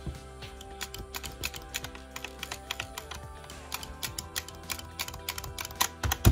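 Many small plastic clicks and taps from the rear-handle cover and throttle trigger parts of a Stihl MS261C chainsaw being pressed into place by hand, coming thicker in the second half, over background music with steady held tones.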